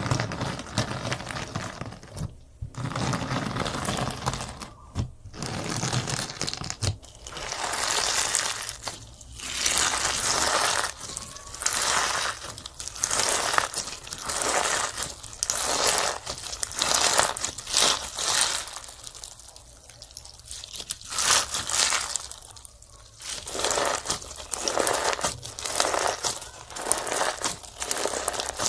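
Slime being squeezed and squished by hand, giving repeated crackly, crinkly squishes every second or two.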